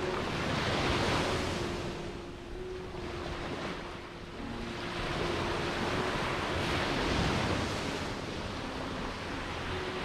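Waves breaking and washing up on a sandy beach, the surf swelling and easing in surges a few seconds apart.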